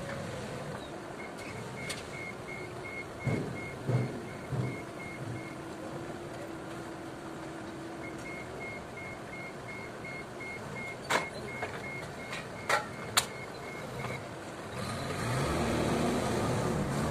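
Forklift's reversing alarm beeping about three times a second in two runs, over the forklift's engine running. A few low thumps come early, sharp knocks follow around the middle, and the engine grows louder near the end.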